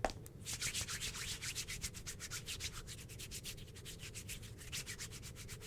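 Soft, quick scrubbing strokes, about seven or eight a second, evenly repeated: ASMR rubbing close to the microphone that enacts shampoo being worked into a dog's fur.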